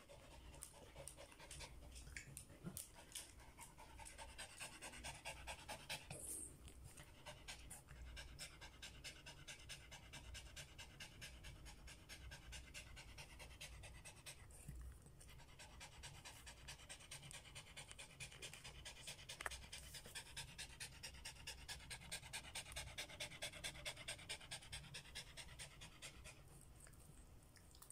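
Samoyed dog panting rapidly and evenly with its mouth open, tired after a walk. There is a short break about halfway and another near the end.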